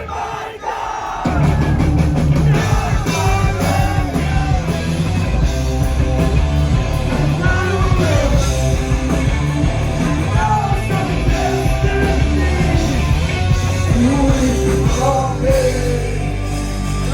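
Loud live rock band with a singer over heavy bass and drums; the sound thins out and drops briefly about a second in, then the full band comes back.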